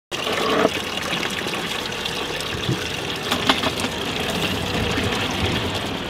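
Water gushing steadily from a brass tap into a plastic bucket as it fills.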